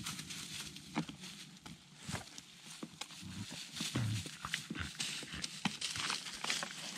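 Two border collies moving through dry leaves and pine needles on a forest floor, one digging and nosing through the litter, the other gnawing a fallen branch. The rustling and crackling of the leaves is broken by irregular sharp snaps and clicks.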